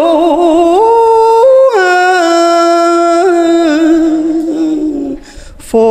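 A man chanting a Hòa Hảo Buddhist verse into a microphone in a slow, drawn-out melodic style. He holds long notes with a slow waver, steps up in pitch, then drops and holds a long lower note, with a brief break near the end.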